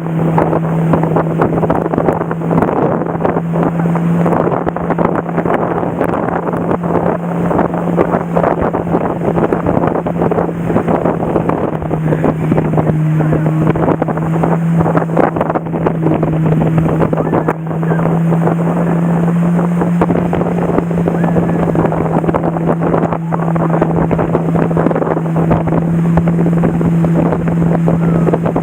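Motorboat engine running steadily at speed with an unchanging drone, under heavy wind buffeting on the microphone and rushing water.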